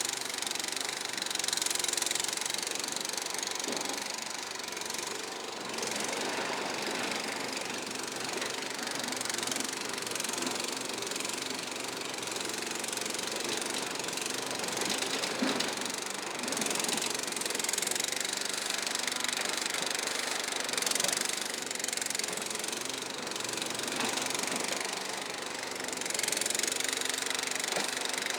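Struck Magnatrac Junior mini bulldozer's Kohler engine running steadily as the machine works, with a hissing noise that swells and fades every few seconds.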